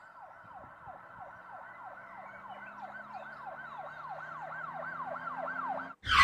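Emergency vehicle siren in a fast yelp, its pitch sweeping down about three times a second over a low steady hum. It grows louder and cuts off abruptly near the end.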